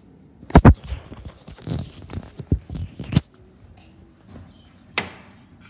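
Handling noise of a phone being moved by hand: two loud knocks, then a run of scrapes and thumps as the phone rubs against a fabric hoodie, and one sharp click near the end.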